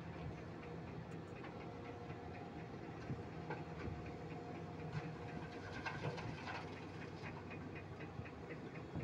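Heavy machine's diesel engine idling with a steady low hum and a quick, regular ticking, heard from inside the cab.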